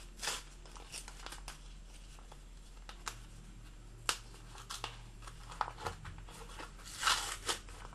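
Small packaging being handled and opened by hand: scattered light clicks and crinkling rustles, with a longer, louder rustle about seven seconds in.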